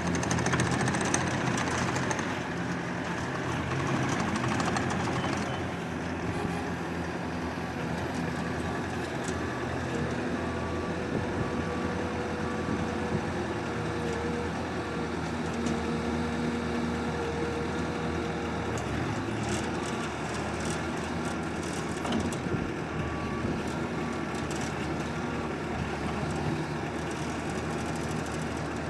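Bobcat T590 tracked skid steer's diesel engine running steadily, swelling louder near the start and again a few seconds in. A backup alarm beeps in a regular series for stretches of the run.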